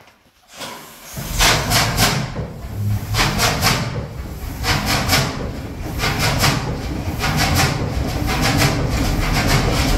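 Fairbanks Morse 32E six-cylinder two-stroke diesel engine on a cold start. From about a second in, hissing chuffs come roughly once every second and a quarter over a low rumble, evening out into a steadier run near the end.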